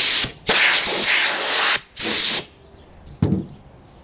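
A compressed-air blow gun hissing in three bursts, two long and one short, blowing sanding dust off a freshly sanded primer panel. A dull thump follows a little after three seconds.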